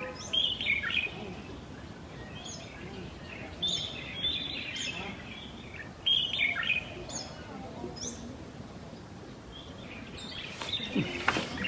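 Small birds chirping repeatedly in short, quick calls, with a steady outdoor background and a brief sound near the end.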